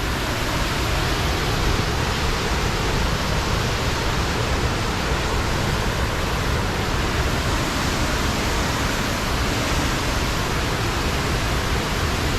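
Waterfall close by: a steady, unbroken rush of falling water.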